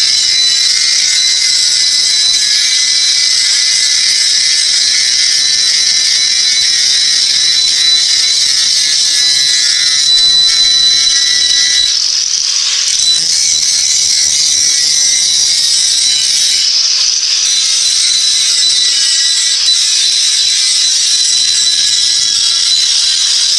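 Angle grinder grinding steel: a loud, steady hiss over the motor's high whine, whose pitch wavers under load and eases briefly about halfway through as the disc comes off the work. The steel is being ground flat ready for welding.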